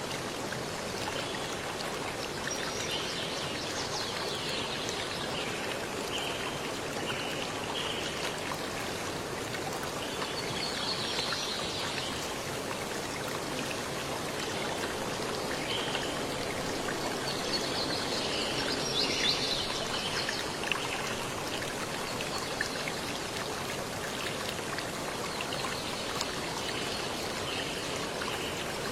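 Running water of a stream, a steady rushing and trickling, with high bird calls coming and going over it.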